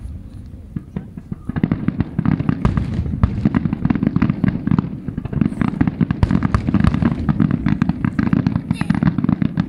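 Starmine fireworks: a rapid barrage of shell bursts and crackle, getting dense about a second and a half in.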